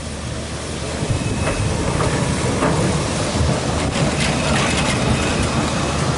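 Articulated low-floor tram rolling past at close range through a track junction: a steady rumble of wheels on rails that grows louder from about a second in, with several short clicks as the wheels cross the rail joints.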